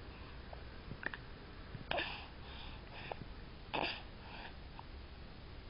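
A baby sucking on its fingers: a few faint, wet smacking clicks, the loudest about two seconds in and again near four seconds.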